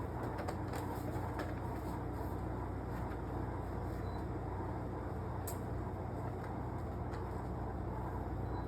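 Window air conditioner running: a steady fan whoosh over a constant low hum, with a few faint ticks.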